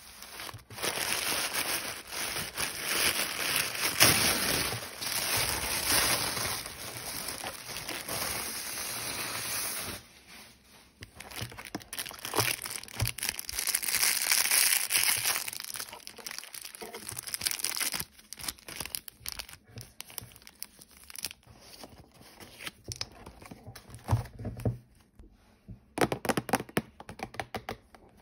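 Tissue paper crinkling and rustling as it is unwrapped, continuously for about the first ten seconds. Then a plastic bag crinkles in bursts, and in the last third come scattered light clicks and taps of a clear plastic clamshell container being handled.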